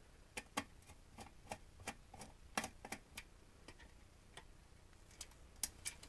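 Faint, irregular light clicks and ticks of a screwdriver, a small screw and its nut knocking against a steel switch case as a circuit board's mounting screw is undone by hand.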